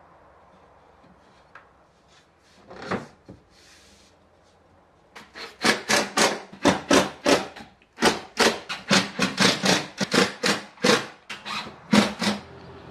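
Quick, rhythmic scraping strokes on wood, about four a second, starting about five seconds in, after a couple of faint knocks.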